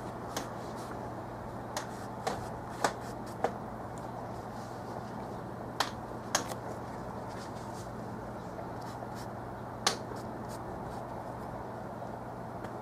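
Steady room hiss with a low hum, broken by about eight short, sharp clicks and taps at irregular intervals.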